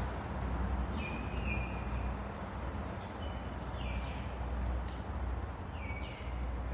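A steady low rumble of background noise, with a small bird chirping a few short, high, falling notes, twice about a second in, twice near the middle and once near the end.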